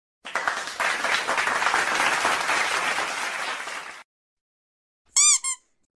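Canned applause: a crowd clapping for about four seconds, starting and cutting off abruptly. About a second later comes a brief high warbling tone.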